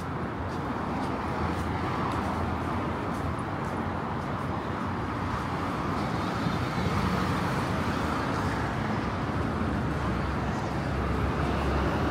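City street traffic noise: a steady wash of passing cars and road rumble, growing a little louder near the end.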